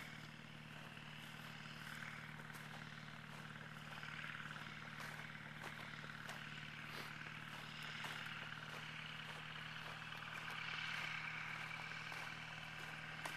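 Faint, steady drone of the Kitfox light aircraft's engine and propeller in flight, growing a little louder about ten seconds in, with scattered light clicks.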